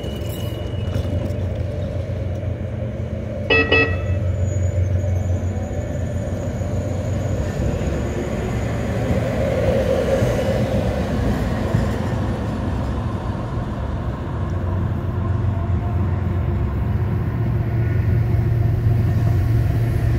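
Siemens light rail train running with a steady low rumble, with one short, sharp toot about three and a half seconds in.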